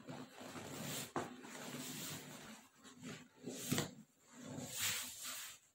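Fabric rustling as a sleeping bag is squeezed and pulled out of its stuff sack: a continuous run of rustling for about the first half, then three shorter rustles.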